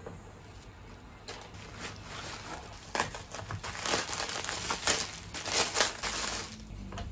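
Thin clear plastic packaging crinkling and rustling as a clear acrylic heart-shaped mirror is unwrapped from it by hand. The crinkling starts about a second in, is loudest in the second half and stops near the end.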